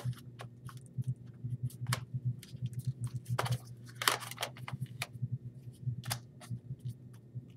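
Plastic clicks, knocks and sliding scrapes of a laptop battery being pulled out of and slid back into the underside of a Lenovo ThinkPad T430s, with two longer scrapes in the middle. A low steady hum runs underneath.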